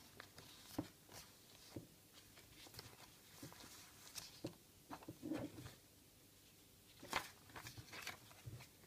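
Folded paper instruction leaflets being unfolded and handled, giving faint, irregular rustles and crinkles, the sharpest about seven seconds in.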